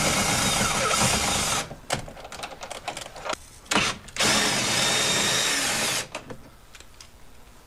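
Cordless drill/driver spinning out the side mirror's mounting bolts on a Ford F-150 door. A steady whining run of nearly two seconds is followed by several short trigger bursts, then a second run of about two seconds that stops about six seconds in.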